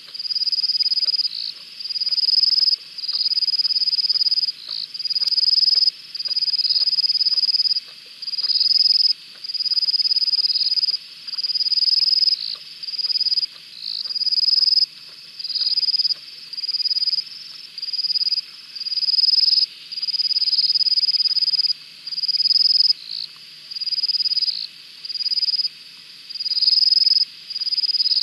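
A shrill, high-pitched trilling night call repeats in bursts of about a second with short gaps, over a fainter steady chorus of other calls. Faint soft ticks underneath fit a lioness lapping water.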